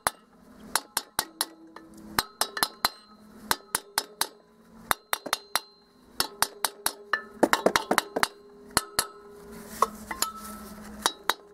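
A metal hammer tapping repeatedly on a Volkswagen Beetle engine's cast-iron cylinder barrel: dozens of quick, light blows, a few a second, each with a short metallic ring, thinning out briefly about halfway. The tapping is meant to break the old rust so the stuck cylinder comes free of the heated crankcase.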